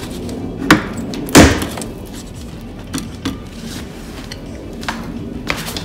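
Plastic rear diffuser of an Audi B9 S5 Sportback snapping free of its retaining clips as it is pulled off the bumper: two sharp snaps about a second in, the second the loudest, then a few lighter clicks.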